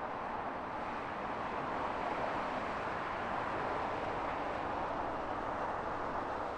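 Steady distant rush of a steam locomotive working a long train, blended with motorway traffic noise, growing a little louder about two seconds in as the train approaches.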